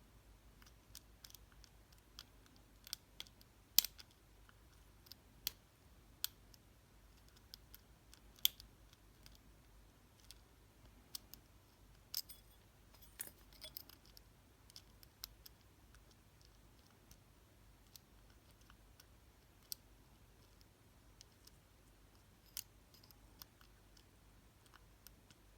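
Faint, irregular metallic clicks of a flag pick working the pins inside a Reece dimple padlock under heavy tension, about one every second or so.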